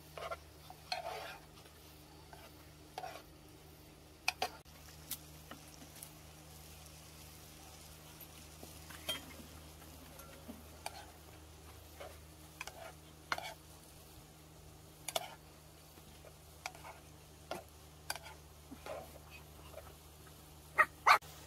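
Metal tongs tossing sauce-coated noodles in a pan: scattered wet squelches and light clicks of the tongs, with two sharper clicks near the end, over a faint steady low hum.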